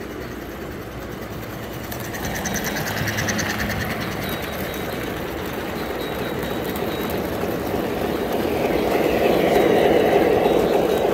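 S gauge model trains rolling past on the track: a continuous rumble of wheels and motors that swells as a steam locomotive and its freight cars pass close, loudest near the end.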